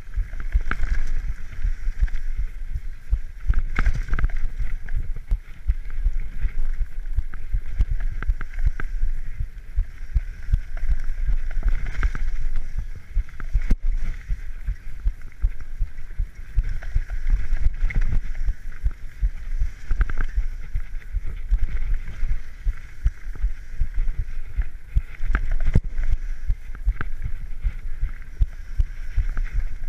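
Mountain bike riding fast down a dirt forest trail: wind buffeting the microphone over a low rumble of tyres on dirt, with frequent rattling knocks from the bike going over roots and bumps.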